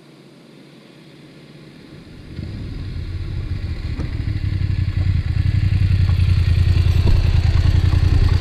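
Dual-sport motorcycle approaching on a dirt track, its engine faint at first and growing steadily louder as it rides up close.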